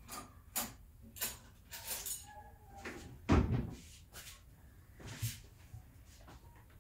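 Scattered short knocks and clicks of someone moving about at a kitchen table and sitting down, with one heavier low thump about three and a half seconds in.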